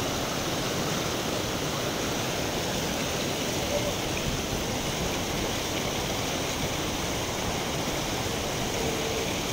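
Steady rush of river water churning against and between shoreline rocks, an even hiss with no breaks.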